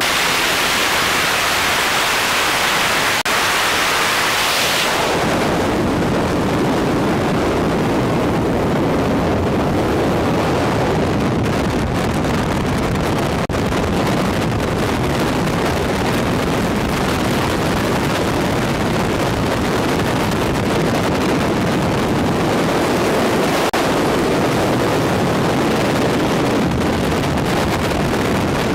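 Loud, steady rush of freefall wind over the microphone during a tandem skydive, hissier for about the first five seconds and then fuller and lower.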